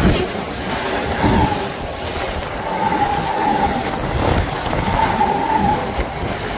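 Mumbai suburban electric local trains running on neighbouring tracks, heard from an open train doorway: a steady rumble and rattle of wheels on rails, with a faint high whine that comes and goes a few times.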